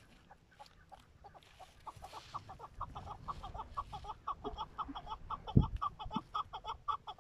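Young male chukar partridge calling: a rapid run of clucking notes, about six a second, that starts faint and grows steadily louder. A single low thump sounds about five and a half seconds in.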